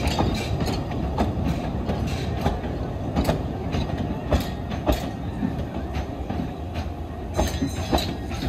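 Narrow-gauge wooden passenger carriages rolling past with a steady rumble, their wheels giving irregular sharp clicks and clanks over the rail joints and pointwork.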